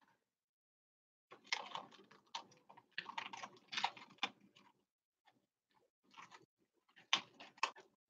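Latex balloon being stretched and worked open by hand: irregular bursts of soft rubbery rustling and clicking, a longer spell in the first half and a shorter one near the end.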